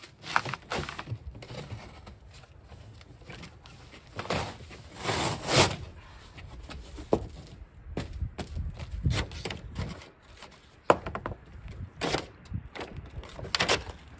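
Cardboard packaging being pulled open and handled: irregular thuds and knocks, with longer scraping and rustling swishes of cardboard in between.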